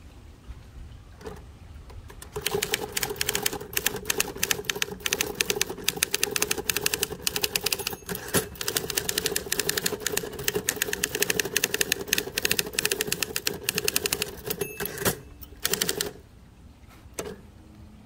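A 1960s Torpedo 18B portable typewriter being typed on quickly: a fast, unbroken run of key and typebar strikes starts about two seconds in and lasts about twelve seconds. It is followed by a few separate strokes near the end.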